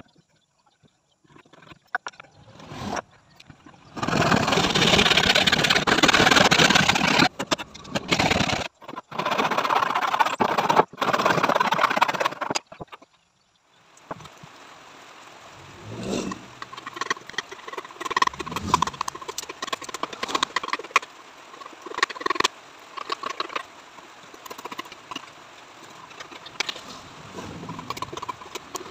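Loud steady machine noise in long bursts with short breaks, like a power woodworking tool cutting. It stops about halfway, then comes a run of separate machete strokes chopping and shaving a wooden stick.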